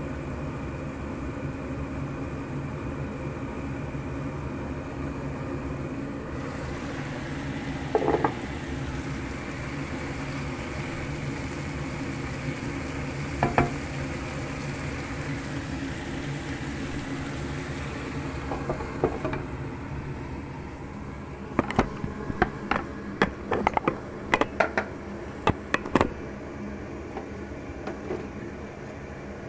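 Long beans and onion frying in a pan: a steady sizzling hiss over a low hum, growing brighter a few seconds in. Two single knocks follow, and later a quick run of sharp clicks and clatters.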